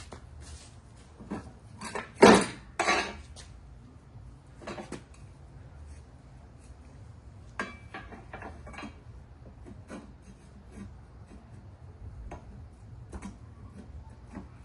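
Metal tools and parts clinking and knocking, with a louder clatter about two to three seconds in and scattered lighter clicks after.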